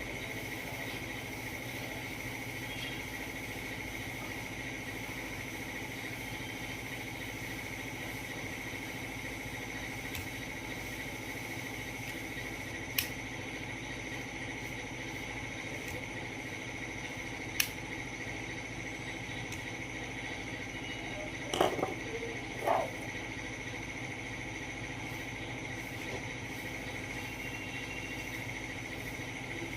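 A steady machine hum with a constant high whine, broken by two sharp clicks about 13 and 18 seconds in and a pair of short knocks a little after 21 seconds.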